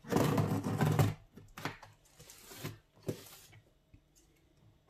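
Scissors cutting and ripping through plastic wrap on a cardboard parcel: a crackling rip of about a second, then a few shorter crinkles and snips.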